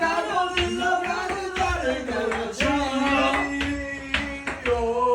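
Music with a voice singing, notes held and sliding in pitch, crossed by sharp hits.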